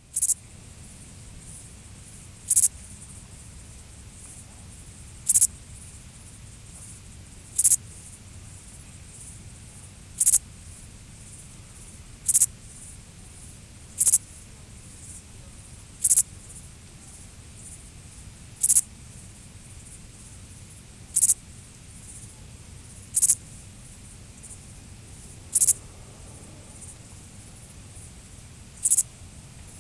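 Grasshopper stridulating: short, high-pitched buzzy chirps repeated roughly every two to three seconds over a faint steady hiss.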